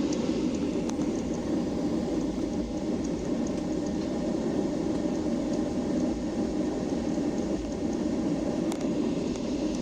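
Steady rumble and hiss of a Boeing 737-800 heard from inside the passenger cabin, with a couple of faint clicks.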